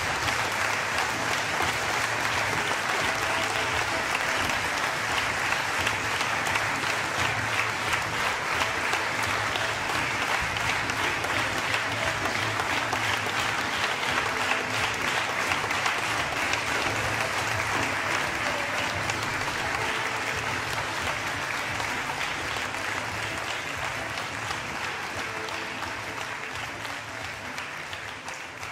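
Audience applauding steadily throughout, the clapping slowly fading away near the end.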